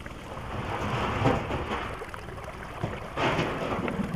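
Wind rushing over the camera microphone, an even noise that swells twice, once about a second in and again about three seconds in.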